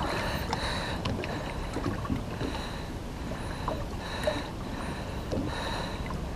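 Calm water lapping softly against the side of a drifting boat, with small splashes, plus a faint high whine that comes and goes.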